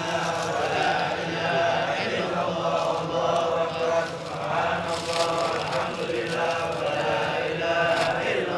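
Large crowd of men chanting a devotional maulid refrain together in unison, a continuous melodic chant of many voices.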